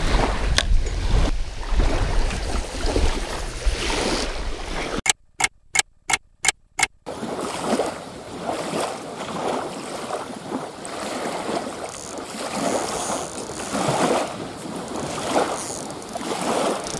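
Small waves lapping and splashing against a lake shoreline, with wind gusting over the microphone. About five seconds in the sound drops out for two seconds, broken only by six sharp clicks.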